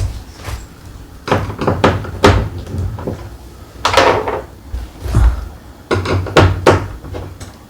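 Wall-mount hardware being handled: a dozen or so sharp knocks and clatters, with a short scraping rustle about four seconds in, as the screws, washers and spacers are taken out of their packing.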